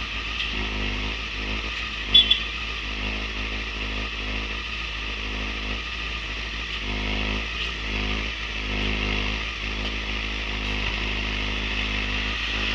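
Motorcycle engine running in traffic, its pitch shifting a little with the throttle, over a steady hiss. A short sharp sound with a brief high tone comes about two seconds in.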